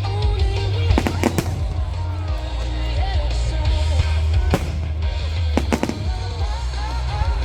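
Fireworks going off in sharp bangs, a pair about a second in, one in the middle and another pair a little later, over loud music with a heavy, steady bass line.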